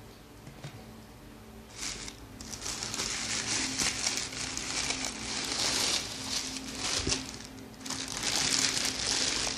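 Packing paper crinkling and rustling as it is handled, starting about two seconds in and coming in uneven bursts.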